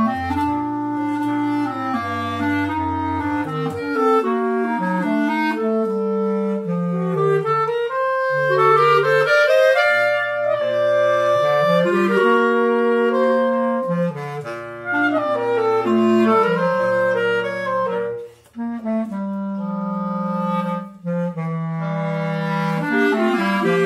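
Two B-flat clarinets and a bass clarinet playing together in a slow three-part arrangement: sustained chords over the bass clarinet's low line, with a brief pause about three quarters of the way through.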